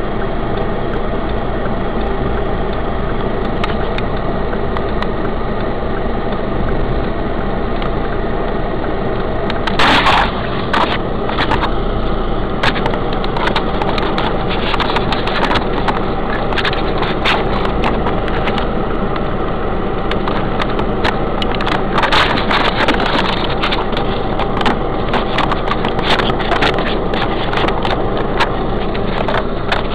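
Car engine running with a steady hum, heard from inside the cabin. From about ten seconds in, many sharp crackles and pops come over it, densest near the middle.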